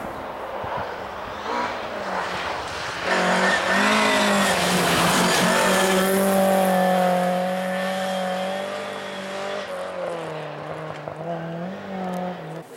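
Volvo 240 rally car driven hard on a gravel stage: the engine runs at high revs, its pitch dipping and rising a few times, with tyre and gravel noise loudest in the middle as the car passes close.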